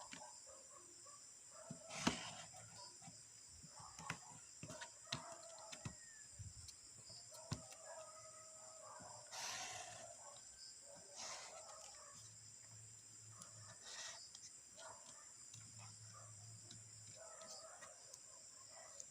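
Faint chickens clucking, with a rooster crowing about halfway through. Sharp clicks and knocks come now and then, the loudest about two seconds in, and a brief scrape follows about nine seconds in.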